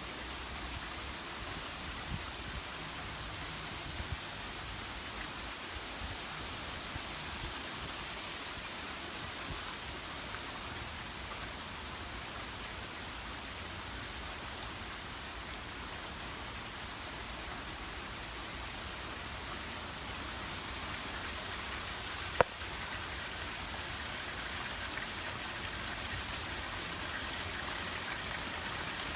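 Steady rain from a thunderstorm, an even hiss of rain falling on surfaces. A single sharp click about three-quarters of the way through.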